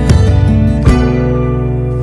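Background music: a plucked acoustic guitar, with a note struck near the start and another about a second in, each left to ring.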